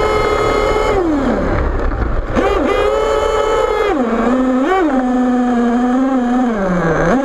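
HPI Savage XL radio-controlled monster truck's small nitro engine running at high revs, then easing off and blipping the throttle twice. It settles at a lower steady speed, dips near the end and revs up again.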